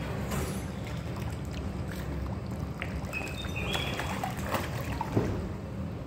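Water splashing and slapping at the surface as a crowd of koi jostle and thrash there, small scattered splashes over a steady low rumble.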